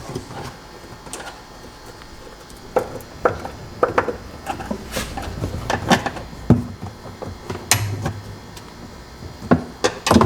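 Hands working on car parts and tools: irregular clicks, knocks and rubbing, with a louder knock near the end.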